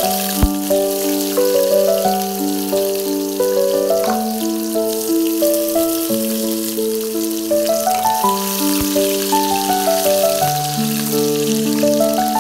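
Onions, garlic and a bay leaf sizzling in hot oil in a pan, with a steady frying hiss. Background music with a simple melody of short held notes plays over it.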